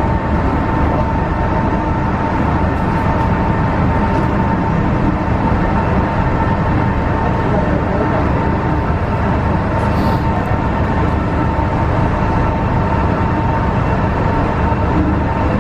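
MTR Tsuen Wan Line M-Train running through the tunnel in restricted manual mode, heard from inside the car: a steady rumble of wheels and running gear with a constant whine.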